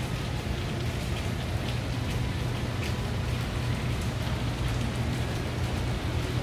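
Steady rain falling in the city, with scattered drop ticks and a steady low hum underneath.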